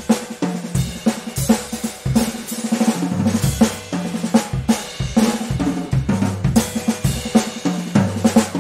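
Band music led by a drum kit, with snare, bass drum and cymbals keeping a steady beat over a moving bass line.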